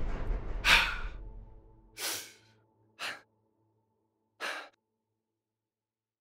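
A man breathing hard: four loud breaths or gasps over the first five seconds, while a low music tone dies away in the first two seconds.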